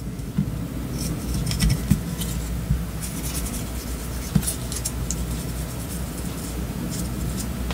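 Steady low rumble in the background, with scattered light clicks and scrapes from a small brush and fingers working stripping gel over a small model truck chassis.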